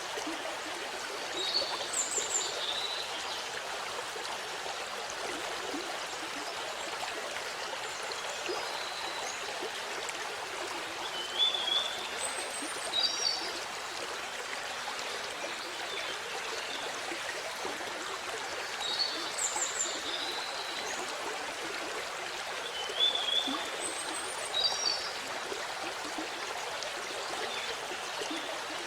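Waterfall water rushing steadily, with small birds chirping in short high bursts several times over it.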